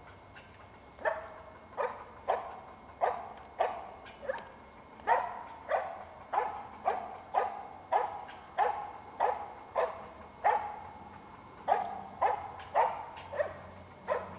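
Squirrel dog barking steadily at the base of a tree, about two short barks a second starting about a second in: treeing barks, the dog's signal that it has squirrels treed.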